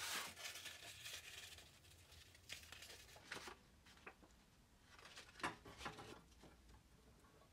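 A sheet of paper rustling and crinkling quietly as it is handled and folded by hand, with a few short sharper crackles and taps, the loudest about five and a half seconds in.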